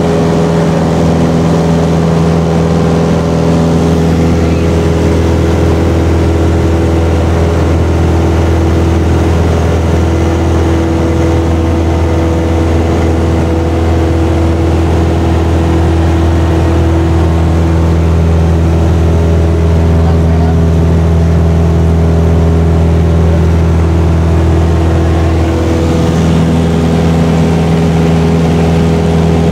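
Piston engine and propeller of a single-engine high-wing light airplane in flight, heard inside the cabin as a loud, steady drone.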